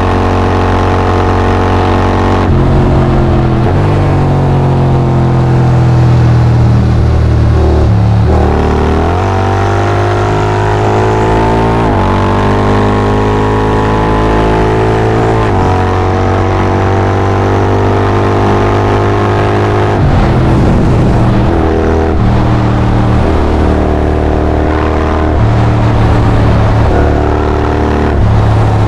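Honda X-ADV 750's parallel-twin engine through a full Akrapovic exhaust, pulling hard at highway speed. The pitch dips and rises again a few times as the throttle eases off and comes back on.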